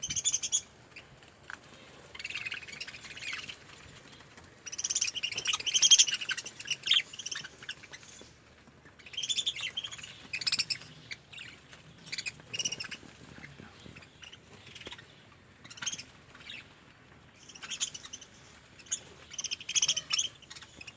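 Budgerigars chirping and chattering in bursts every second or two, with short pauses between them.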